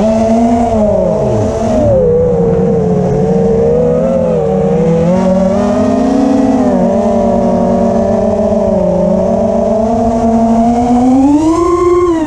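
Brushless motors and three-blade 5-inch props of an FPV racing quadcopter (EMAX ECO II 2306 1900KV on 4S) whining in flight, heard from the onboard camera. The pitch rises and falls with the throttle, climbing sharply near the end and then dropping away.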